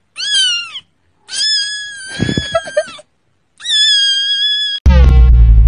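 A kitten crying: three high-pitched meows, a short falling one, a long drawn-out one and a level one. Loud music with a held note and deep bass cuts in suddenly near the end.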